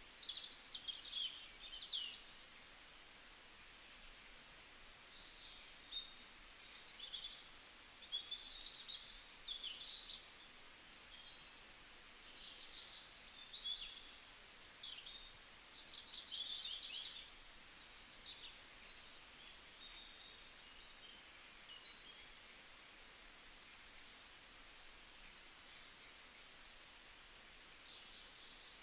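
Small birds chirping in many quick, high, repeated calls, faint against a light background hiss.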